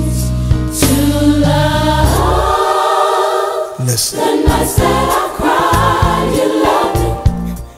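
Gospel choir singing over instrumental backing with a bass line; the bass drops out briefly partway through.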